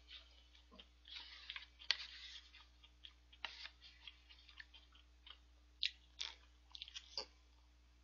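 Faint chewing of udon noodles, with scattered short mouth clicks and smacks.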